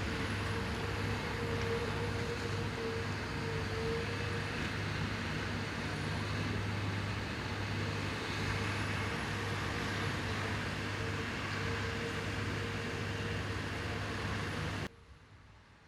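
Steady drone of a running engine with a low hum and a thin steady whine, cutting off abruptly about a second before the end.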